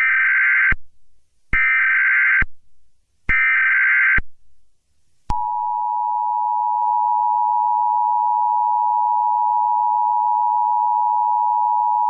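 Emergency Alert System SAME header: three short bursts of warbling digital data tones, each just under a second long. About five seconds in, the EAS attention signal begins, a steady two-tone beep that does not let up.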